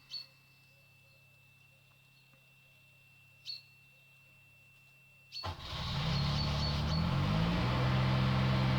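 The Zanotti refrigeration unit's engine starting about five and a half seconds in after a brief sound, its pitch climbing then settling into steady running a couple of seconds later.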